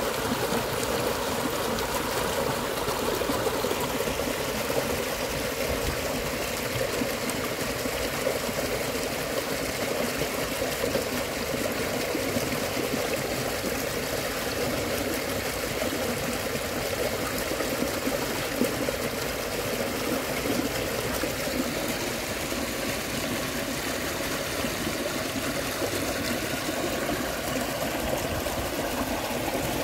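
A shallow, fast-flowing stream rushing and splashing over rocks in a steady, unbroken run of water noise.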